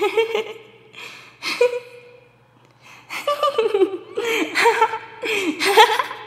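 A person giggling in short bursts, pausing about two seconds in, then breaking into a longer run of giggles.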